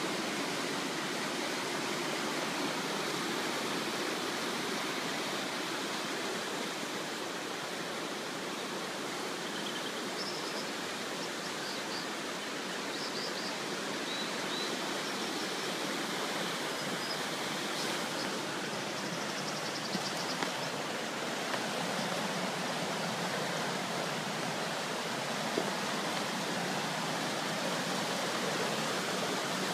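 Rapids of a fast mountain river rushing over rocks: a steady, even rush of water that does not change.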